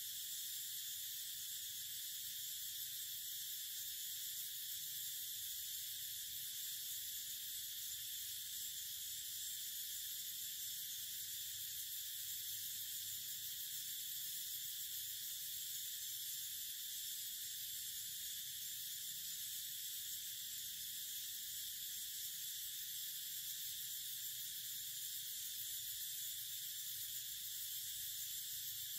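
Steady high-pitched drone of forest insects, an unbroken hiss that does not change.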